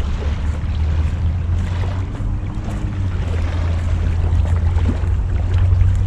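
Steady low wind rumble on the microphone, with the wash of harbour water against a rocky shore.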